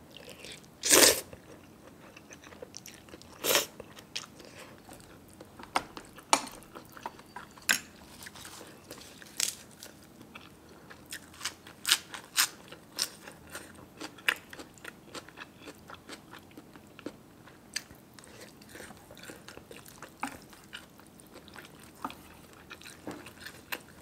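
A person eating close to the microphone: crisp bites and chewing, heard as many short, sharp crunches at uneven intervals, with two louder ones about a second in and near four seconds in.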